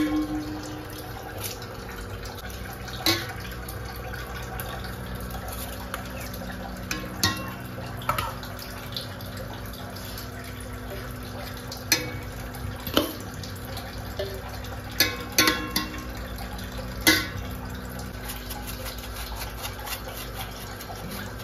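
A steel ladle clinking against an aluminium cooking pot and serving bowls as cooked rice and chicken are layered in for dum biryani: about ten sharp knocks at irregular intervals, over a steady low hum.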